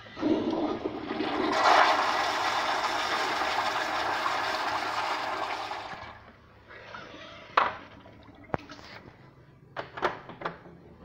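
Kohler Anglesey toilet flushing: a loud rush of water that starts just after the beginning, holds for about six seconds, then dies away. A few sharp knocks and clicks follow.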